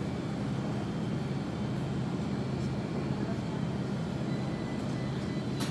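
Steady low mechanical hum with a faint hiss over it.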